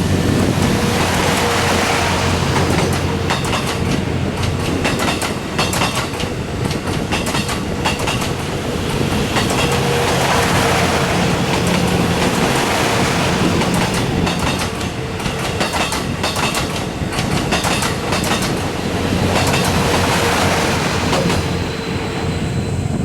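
Twilight Express Mizukaze sleeper train running past close by. Its wheels clack over the rail joints as the cars go by, over a dense rolling-noise rush.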